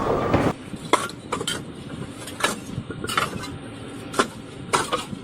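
Irregular sharp knocks and clinks of hand tools striking building materials, about ten strikes spread unevenly.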